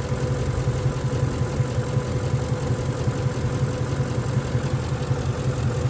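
Ford F-150 engine idling with a rapid, uneven low pulsing, alongside a faint steady whine. The engine has an intermittent misfire on cylinders 1 and 6, which makes it shake at idle.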